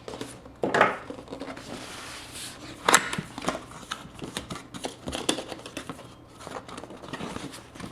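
Cardboard and plastic packaging of a keyboard's retail box being opened by hand: irregular rustling, crinkling and scraping with scattered clicks and snaps, the sharpest snap about three seconds in.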